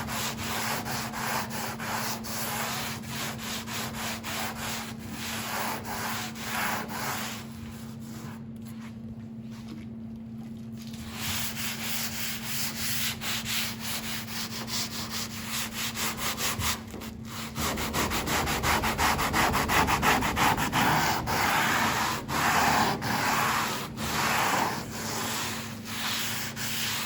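Scotch-Brite pad scrubbing back and forth over a pickup's painted steel hood with soapy water, wet-scuffing the patina paint to knock the roughness off before clear coat. The strokes are rhythmic, ease off for a few seconds about eight seconds in, and come back louder in the second half.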